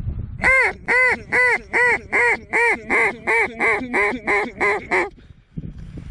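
Mallard hen duck call blown close by, a run of about a dozen loud quacks that come slightly faster and drop a little in pitch toward the end, then stop about five seconds in: calling to bring circling mallards into the decoys.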